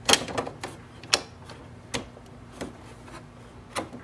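Sharp plastic clicks and knocks as a black print head is pushed and seated into the print carriage of an HP Smart Tank 7001 inkjet printer. A quick run of clicks comes at the start, then four single clicks spread through the rest.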